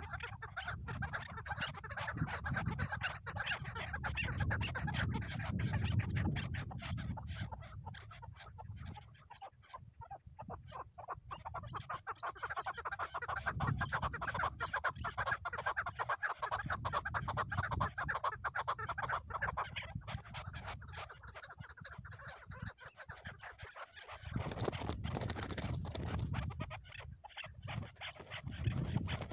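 Chukar partridges calling in long runs of rapidly repeated clucking notes over a low rumble, with lulls in the calling.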